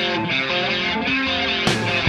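Live rock band on stage: an electric guitar picks a repeating intro riff, and near the end a cymbal crash comes as the drums come in.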